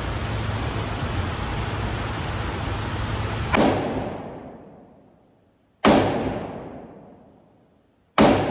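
Three gunshots about two and a half seconds apart, each followed by a long echoing decay. A steady hum underneath stops after the first shot.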